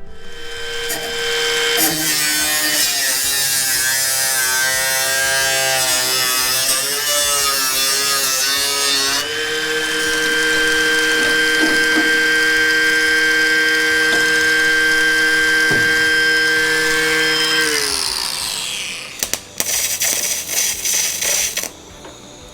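A small high-speed power cutting tool cutting through the rusted inner sill sheet metal: a high whine that wavers under load, then holds steady and winds down about eighteen seconds in, followed by a few short bursts.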